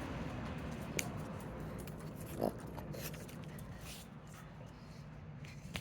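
A pug snuffling and snorting, with a short grunt about two and a half seconds in and a sharp click about a second in, over a steady background noise.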